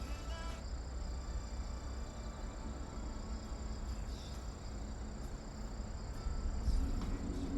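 Crickets chirring outdoors: a steady, high, unbroken trill, over a low rumble of wind or ambient noise.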